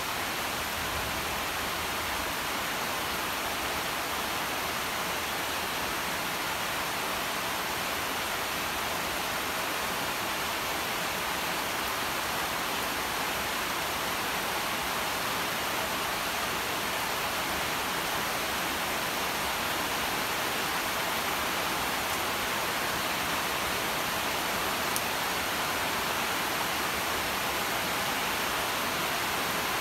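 Steady rain falling on leaves, an even hiss that does not change.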